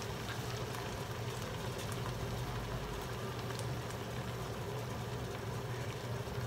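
Gentle, steady sizzling and bubbling from a nonstick pan of garlic, dried red chilies, soy sauce and brown sugar cooking over low heat, over a steady low hum.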